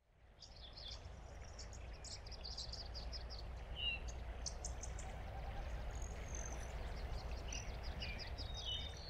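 Outdoor ambience of several small birds chirping and trilling in quick high notes over a steady low rumble, fading in over the first second.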